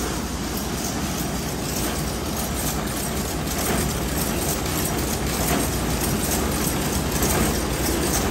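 Jute weaving looms running in a mill hall, a loud, steady, dense mechanical clatter with a continuous low hum underneath.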